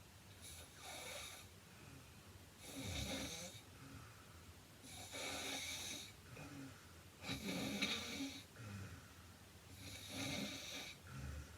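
A heavy-set woman snoring in her sleep: about five rough, noisy snores of about a second each, one roughly every two and a half seconds, the loudest coming near the end.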